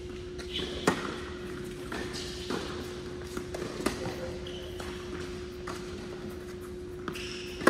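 Tennis ball struck by rackets and bouncing on an indoor hard court during a rally, opening with a serve about a second in, with sharp hits near four seconds and at the very end. Short squeaks of sneakers on the court come between the shots, over a steady hum.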